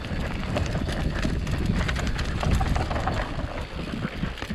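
Mountain bike riding down a rough dirt trail: tyres rolling over dirt and rock, with a dense, irregular rattle of clicks and knocks from the bike over bumps.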